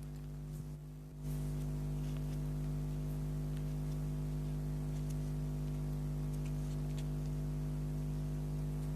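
A steady low electrical-sounding hum with several even pitches stacked on it. It gets louder about a second in, with a few faint soft clicks, perhaps chewing, over it.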